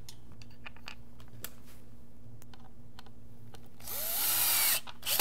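Cordless drill driving a screw into a tripod foot: a few faint clicks of handling, then the drill whirs for about a second near the end as the screw runs in, with a click or two after it stops.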